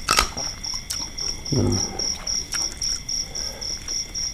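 Crickets chirping in an even, rapid pulse of about three high chirps a second. Over it come close eating sounds: a sharp click just after the start, a few softer ticks, and a brief low hum about a second and a half in.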